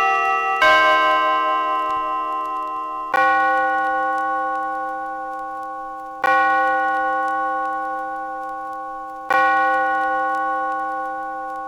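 Clock tower bells: the last notes of a chime run, then a single deeper bell struck three times, about three seconds apart. Each stroke rings on and fades slowly before the next.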